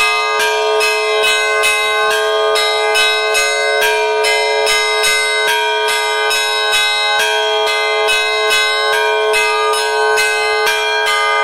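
Orthodox church bells being rung: quick, even strikes several times a second on the smaller bells over the steady ringing of a deeper bell, all the tones blending and ringing on.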